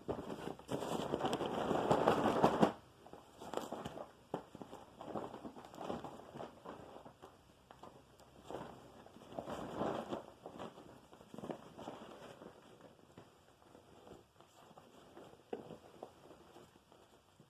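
A rough rustling burst lasting about two seconds, then scattered irregular crackles and clicks: handling noises, with no vacuum motor running.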